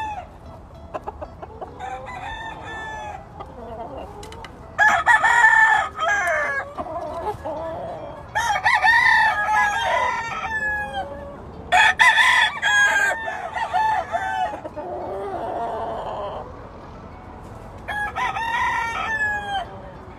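Gamefowl roosters crowing several times, the crows overlapping at moments, with quieter clucking between.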